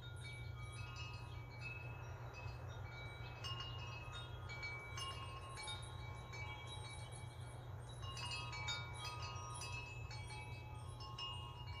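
Wind chimes ringing faintly in the wind: irregular, overlapping chime tones at several pitches, over a steady low hum.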